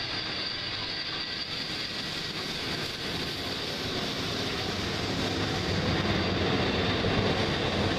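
NSW C35 class steam locomotive 3526 passing close by, tender-first, as a steady noisy rumble that grows louder over the last few seconds.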